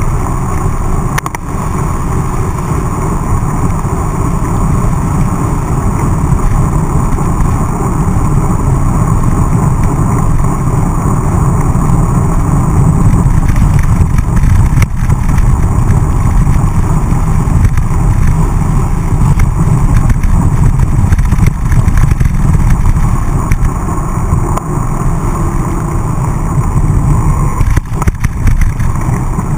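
Wind rumbling over the microphone of a mountain-bike action camera, mixed with tyre noise on wet tarmac as the bike is ridden. A few sharp rattles from the bike near the end.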